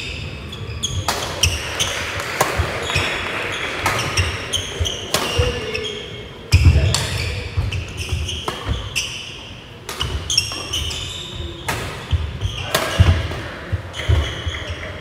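Badminton rally on a wooden court: sharp racket strikes on the shuttlecock at irregular intervals, mixed with the players' heavy footfalls and landings on the floor.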